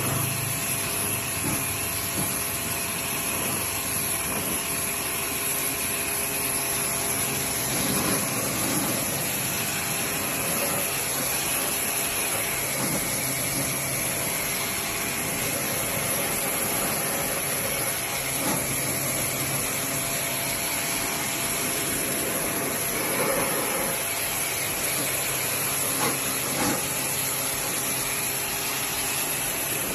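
Steady hissing noise over a low hum.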